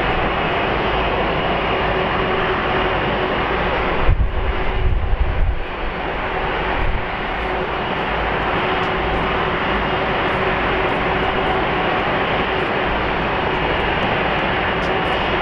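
Airbus A330-300's twin Pratt & Whitney PW4000-series turbofans at takeoff thrust as the airliner lifts off and climbs out: steady jet engine noise with a few steady humming tones through it. The low rumble grows stronger for a couple of seconds about four seconds in.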